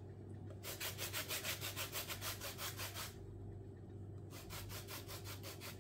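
Orange rind being grated on a fine flat rasp grater for zest: quick, even scraping strokes that start about half a second in, stop for about a second a little past the middle, then resume.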